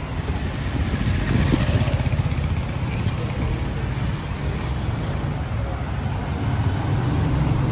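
Street traffic: cars, an SUV and motorcycles driving past close by, a steady engine rumble with tyre noise that gets brighter as a vehicle goes by about a second in.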